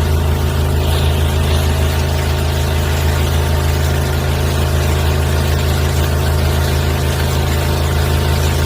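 A high-pressure drain jetter's engine running at a steady pace, a constant low drone with no change in speed.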